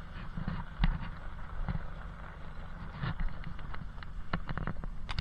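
Four-wheel-drive truck driving over a stony shingle beach: a steady low rumble of engine and drivetrain, broken by irregular knocks and clatters as the tyres roll over rocks and the truck jolts.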